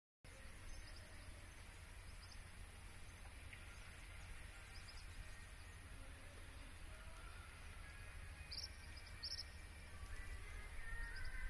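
Faint outdoor ambience: a steady low rumble with two short high bird chirps a little past the middle.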